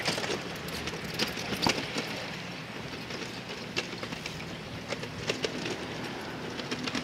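Freight train receding into the distance: the wagons roll away with a steady low rumble, and a scatter of sharp clicks sounds from the wheels, most densely in the first two seconds.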